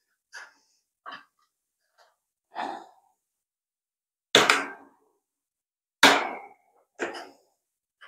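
Metal wire bird cage on castors being handled and moved: a few light knocks, then two loud sharp clanks about four and six seconds in, each ringing briefly.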